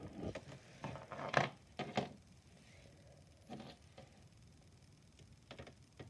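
Small plastic toy figures knocking and tapping against a pin-art toy and a wooden surface as they are picked up and set down: a scattered handful of faint, short clicks, several close together in the first two seconds and a few more later.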